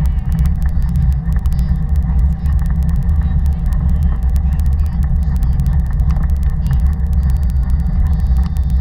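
Steady low rumble of wind buffeting and ride vibration on a camera mounted to a moving Taga cargo bike, with frequent small rattling clicks from the frame.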